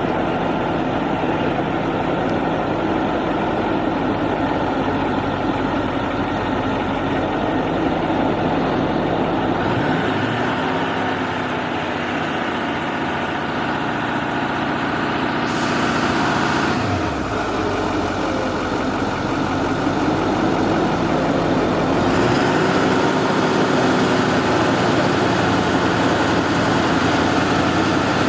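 Ford F-250 engine idling. About ten seconds in it is revved up and held for several seconds before dropping back to idle, and it is raised again a few seconds later; this is the truck running for the strange noise the owner is recording.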